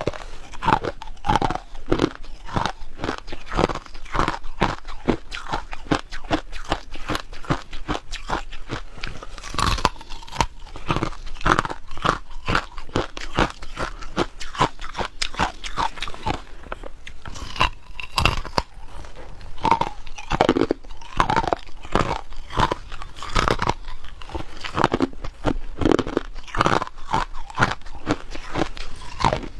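A person biting and chewing ice close to the microphone: dense, irregular crunching, several bites and grinds a second, going on without a break.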